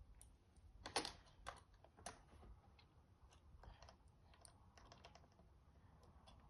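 Faint clicking and tapping of small plastic Lego pieces being handled and pressed together. There are a few sharper clicks about a second in, then a run of quick small clicks.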